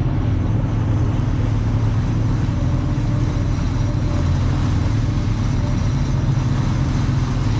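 Twin Yamaha 150 outboard motors running steadily at slow trolling speed, a low even drone, with the rush of water from the wake.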